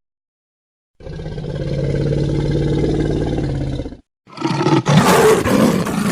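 Roar sound effects played as separate clips. After a second of silence, a steady, low, pitched roar swells and holds for about three seconds, then cuts off abruptly. After a brief gap, a second, rougher roar starts with sudden breaks.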